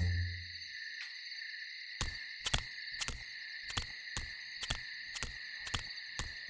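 A cartoon character's light tiptoeing footstep taps, about two a second, starting a couple of seconds in, over a steady high insect chirring of forest ambience. A low music note dies away in the first second.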